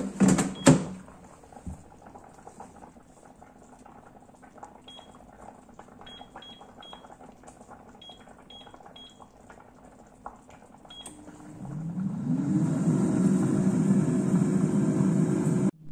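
Innsky air fryer being started: the basket drawer clunks shut, the touch panel gives about eight short high beeps as temperature and time are set, then the fan starts with a hum that rises in pitch over about a second and settles into a steady loud whir.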